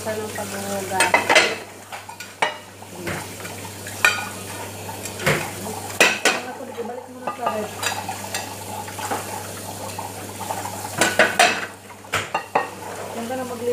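Ceramic plates clinking and clattering against each other as they are handled and stacked, with sharp knocks at irregular intervals over a steady low hum.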